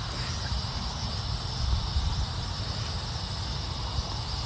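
Steady, continuous insect chorus of crickets trilling high, over a low rumble.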